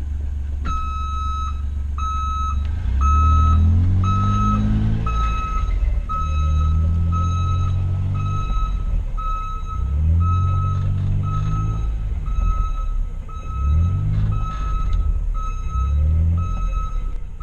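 Newly installed Ecco backup alarm on a John Deere Gator, set off by reverse gear, beeping a steady single tone about once a second. Under the beeps the Gator's engine rises in pitch in several surges as it pulls in reverse.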